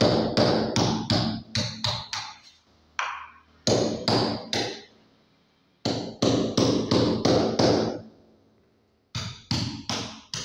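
Hammer driving a steel chisel into a plastered brick wall to cut a recess for a flush electrical switch box. Runs of sharp metallic blows, about five a second, come in four bursts with short pauses between them.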